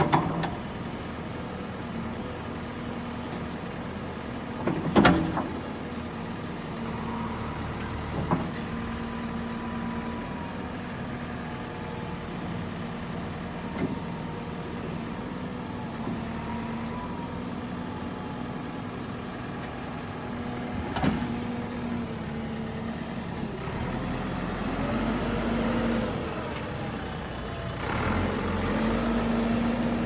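JCB 3DX backhoe loader's diesel engine running steadily while the backhoe arm and bucket are worked, with several sharp clanks, the loudest right at the start and about five seconds in. The engine grows louder over the last few seconds as the machine moves.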